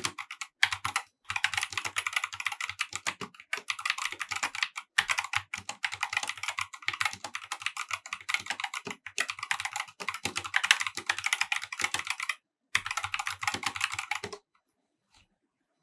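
Fast typing on a Corsair K70 RGB TKL OPX tenkeyless mechanical keyboard with linear optical switches: a dense, rapid stream of keystrokes with two brief pauses, stopping near the end.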